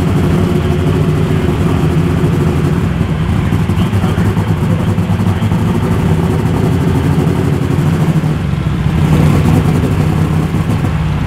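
Unlimited super stock pulling tractor's turbocharged engine running hard at a steady, high pitch, getting a little louder near the end.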